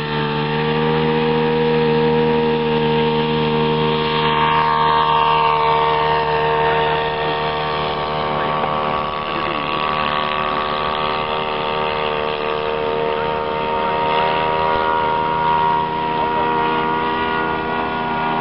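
Radio-controlled model biplane's motor and propeller running at a steady high power setting through the takeoff run and climb-out, with a constant droning pitch.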